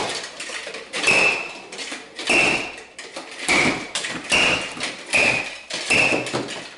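A giant plastic squeaky toy hammer striking a solid chocolate high-heel shoe about seven times, roughly once a second, with a short squeak after each blow as the chocolate cracks apart.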